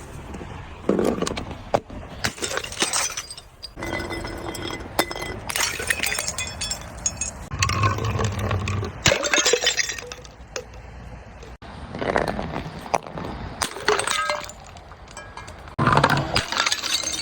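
Glass bottles being crushed and broken: repeated bursts of crunching and crackling, with shards clinking and ringing briefly.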